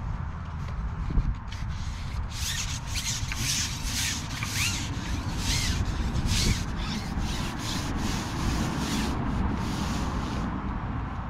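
Repeated short rubbing or scraping strokes, about two a second, starting about two seconds in, over a steady low rumble.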